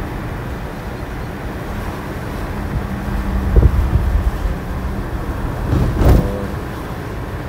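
Steady road and engine noise of a moving car, heard from inside the car, with a faint steady hum midway and two louder low rumbles about three and a half and six seconds in.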